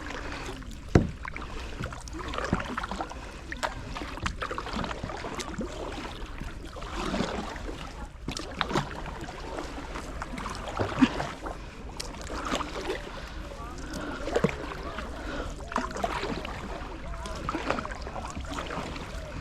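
Kayak paddling: paddle blades dipping and dripping in shallow water, with a few sharp knocks of the paddle against the kayak, the loudest about a second in and again near the middle.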